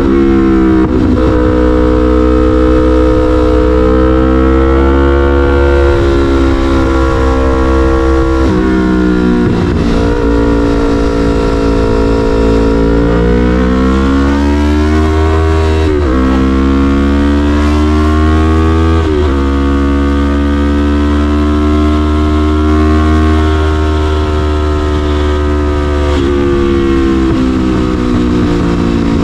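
Yamaha MT-03's parallel-twin engine running loud through an SC-Project CRT full exhaust while riding. The engine note holds steady for long stretches, with the revs climbing and then dropping sharply a few times along the way.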